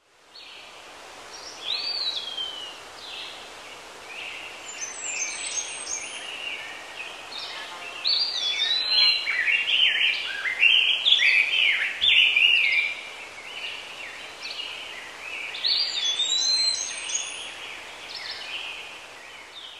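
Birds chirping and singing, a run of quick rising and falling calls over a steady hiss; it fades in at the start and fades out at the end.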